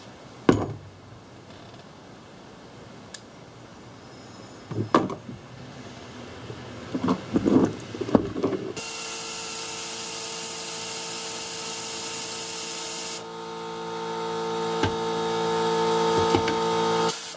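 Metal hand tools clink and knock a few times. Then, about nine seconds in, a shop air compressor starts and runs steadily, growing louder toward the end. A hiss of air accompanies it for its first four seconds or so.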